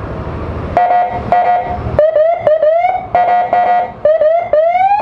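Electronic police-escort style motorcycle siren from an add-on siren module and speaker. It gives two short steady horn-like blasts about a second in, then quick rising whoops alternating with steady blasts, ending in a longer rising sweep.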